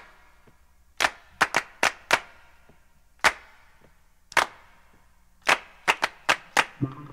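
About a dozen sharp clicks and pops at irregular intervals, several in quick succession near the middle and again near the end, over a faint steady electrical hum on an audio track with no music yet.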